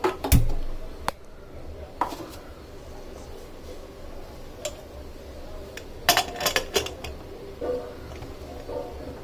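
Metal pressure cooker lid being fitted and closed onto the cooker: a series of sharp metal clanks and clicks, the loudest about a third of a second in and a quick cluster around six to seven seconds in.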